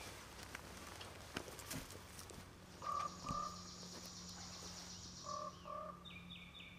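Faint outdoor wildlife ambience: short two-note calls come twice, about three and five seconds in, and a quick run of chirps follows near the end. A few light clicks sound early on.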